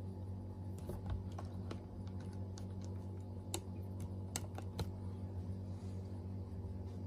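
Scattered small plastic clicks and taps as fingers handle and press on a Sony Walkman cassette player's casing and lid, irregular and most frequent about one to five seconds in, over a steady low hum.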